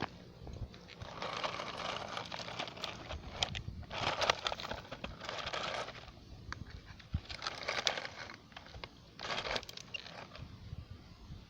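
Loose soil scraped and poured in about six short rustling, crunching bursts with scattered clicks, as a mini excavator's bucket digs and dumps dirt.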